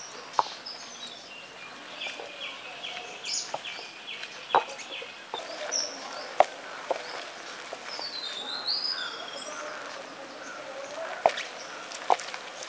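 Hand-turned stone grinder, a conical stone rolled in a round stone basin, grinding mutton and soaked rice, with a few sharp knocks of stone on stone. Birds chirp around it, including a quick run of repeated chirps and a higher warbling phrase.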